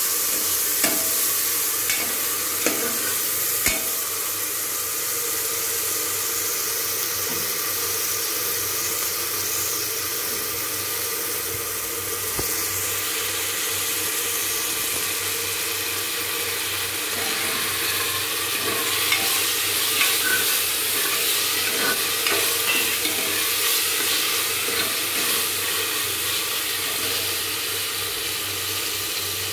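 Onions and meat frying in oil in an open pressure cooker, with a steady sizzle. A steel ladle stirs and scrapes the pot, giving sharp clinks in the first few seconds and again through the second half.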